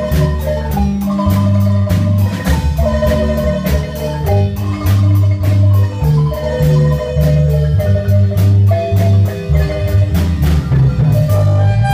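Guatemalan marimba dance music: the marimba's rolled, quivering notes over a bass line and a steady beat. Near the end the beat drops out and the music changes.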